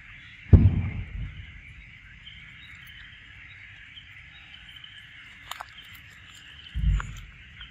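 Steady insect chorus, a continuous high-pitched hiss, broken by two dull low thumps, one about half a second in and one near the end.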